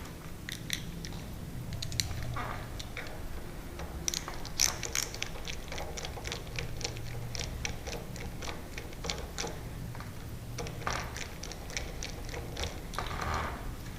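Light metallic clicks, taps and rattles of a mortice lock's parts being worked by hand as its cylinder is taken out, in irregular runs, over a steady low hum.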